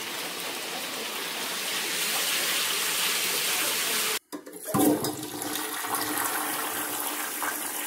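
A steady rush of water, cut off by a brief silence about four seconds in; then a toilet flushing, water swirling down the bowl.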